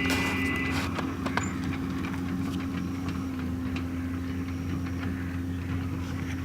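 JCB backhoe loader's diesel engine running steadily, with scattered light clicks and clanks over it.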